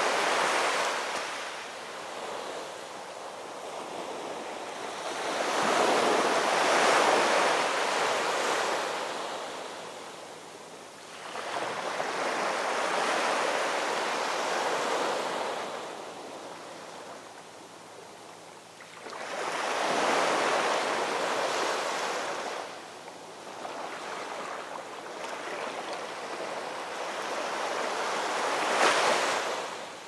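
Heavy storm surf breaking, a rushing roar that swells and falls back in surges about every seven seconds, with a sharp crash near the end.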